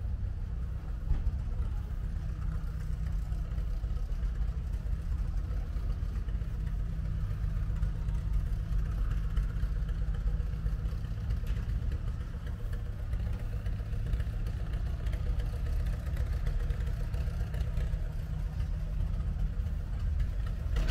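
An engine idling steadily, a low, even hum with no change in speed.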